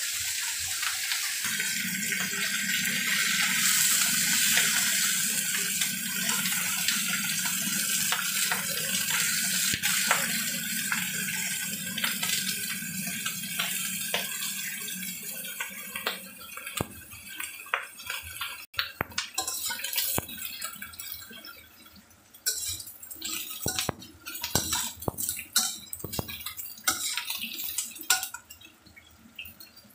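Eggplant pieces sizzling as they fry in oil in a stainless steel wok. The sizzle is steady for about the first half, then fades into scattered crackles and clicks of the spatula against the wok.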